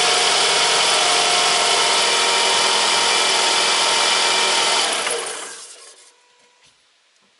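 Toyota four-cylinder 16-valve petrol engine running at idle under the open bonnet, a loud, steady mechanical hum with a whine. About five seconds in it fades away and is gone within a second.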